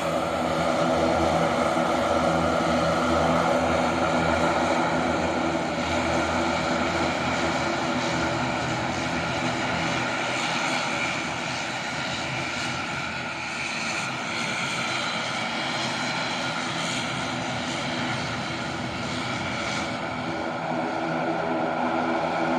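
Steady engine drone, a stack of even, unchanging tones with a hiss over them, dipping a little in loudness midway.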